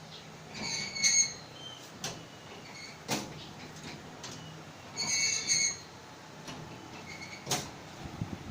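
Metal squealing and clicking from a rotisserie chicken machine's turning spits and drive: two short high squeals, about a second in and about five seconds in, with a few sharp clicks between them.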